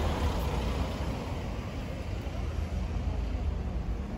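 A car driving past close by, its engine and tyre noise easing off within the first second or so, leaving steady street traffic noise.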